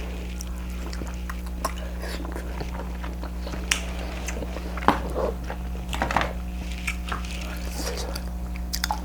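Close-up mouth sounds of a person eating king crab meat dipped in butter sauce: scattered wet chewing and lip smacks, with a steady low hum underneath.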